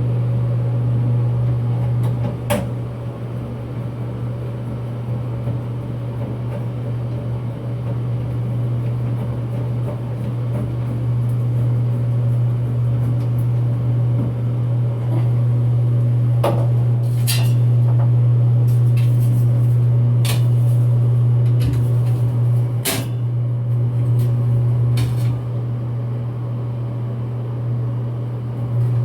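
Broan bathroom exhaust fan motor running again after repair, with a loud, steady low hum. A few sharp clicks and knocks of screw and cover work are heard over it.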